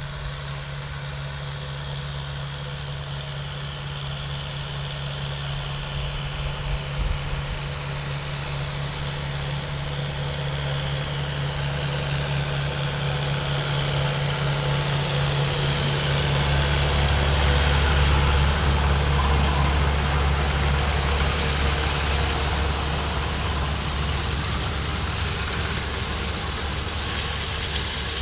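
Farm tractor engine running steadily while it pulls a hay rake and baler hitched together through the field. It grows louder until about two-thirds of the way through, then eases off a little.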